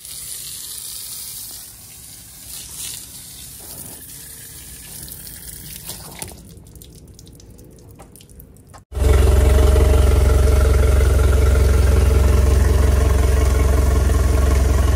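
Water from a garden-hose spray gun hissing onto the boat and concrete. About nine seconds in it gives way abruptly to a Mercury Pro XS 150 outboard idling steadily, loud and low, while it is flushed with fresh water.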